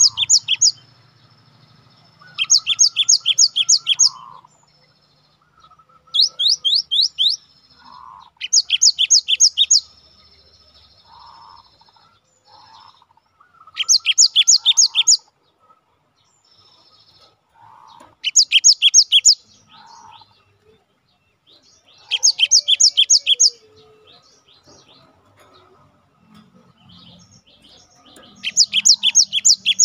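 Cinereous tit (gelatik batu) singing in loud, ringing bursts of fast, repeated sharp notes, each note sweeping downward. Each burst lasts a second or two and comes every few seconds, about eight times, with softer short chirps between them.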